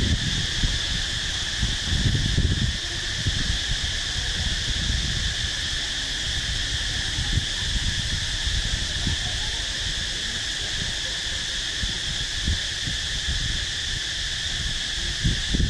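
Steady insect chorus, a constant high buzz, over low irregular wind rumble on the microphone.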